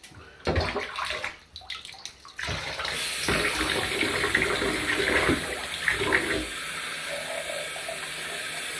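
Bathwater sloshing and splashing as a plastic cup scoops and pours it in a tub, then a bathtub tap turned on about two and a half seconds in, running steadily.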